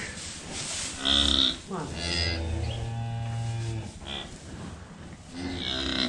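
Charolais cattle mooing: a call about a second in, a long low moo from about two seconds to nearly four, and another call near the end.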